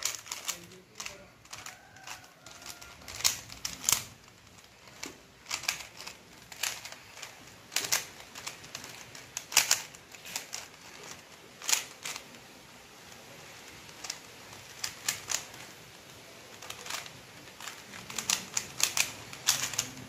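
A plastic 3x3 Rubik's cube being turned quickly by hand: irregular sharp clicks of the layers turning and snapping into place, often in quick runs of several.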